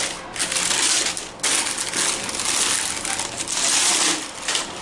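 Sheets of paper wrapping in a sneaker box being handled and pulled aside, crinkling and rustling loudly in several long stretches.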